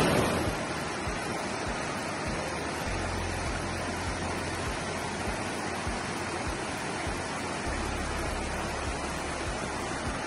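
Steady rushing of water in a rocky forest stream, with a low rumble coming in twice.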